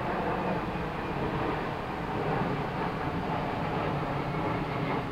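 Steady outdoor street noise: a continuous low rumble of vehicles with no distinct events.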